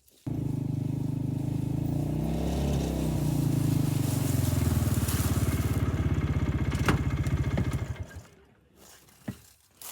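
An engine running steadily, starting abruptly, its pitch shifting about two to three seconds in, then dying away about eight seconds in.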